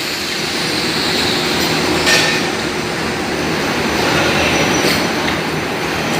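Three-side seal packaging machine running: a steady mechanical din, with a sharp clack twice, about three seconds apart.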